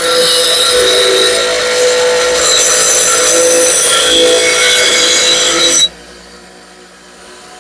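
A steel lawnmower blade is ground against a powered grinding wheel, a loud steady grinding with a high hiss. It cuts off suddenly about six seconds in, leaving only the quieter steady hum of the machine.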